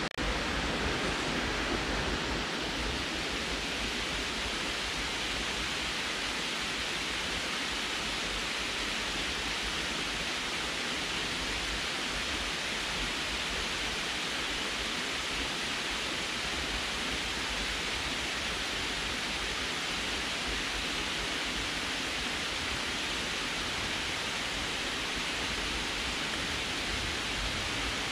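Water pouring over a concrete dam spillway and splashing into the pool below: a steady, even rush of falling water.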